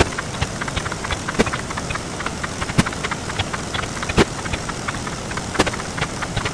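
Counting sound effects sped up into a dense, rapid clatter of short clicks and ticks, with a louder sharp hit repeating about every second and a half.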